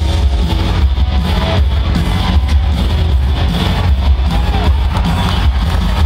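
Loud music with heavy bass and guitar.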